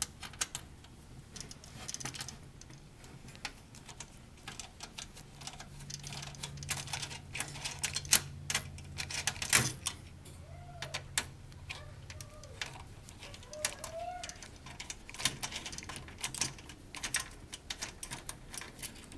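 Irregular small clicks and taps of a screwdriver working Torx screws and of the console's plastic and metal parts being handled, with a few sharper knocks in the middle.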